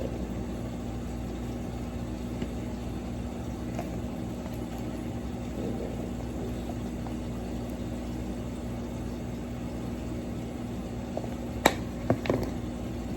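Steady low hum of a running kitchen appliance, with a few sharp clicks near the end.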